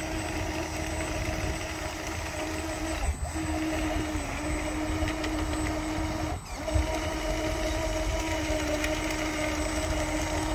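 Steady electric motor and gearbox whine of a radio-controlled crawler bulldozer, under load as it drags a mud-stuck toy dump truck on a chain. The whine cuts out briefly twice, about three and six and a half seconds in.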